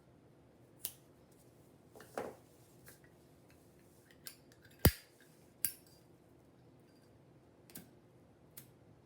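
Scissors cutting paracord: a handful of separate sharp snips and clicks, the loudest about five seconds in.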